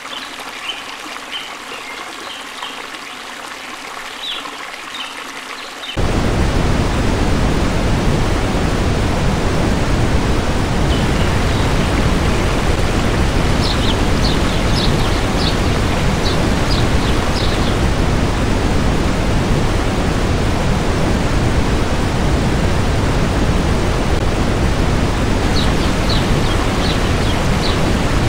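Water spilling over a low stone weir at first. About six seconds in, it gives way suddenly to the loud, steady rush of a tall river waterfall close by. A few short, high bird chirps sound over the water now and then.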